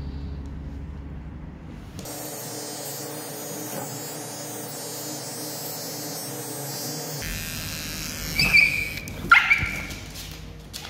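Small cordless paw trimmer buzzing steadily on a Maltese's paw pads, then the Maltese gives two sharp, high barks a little under a second apart.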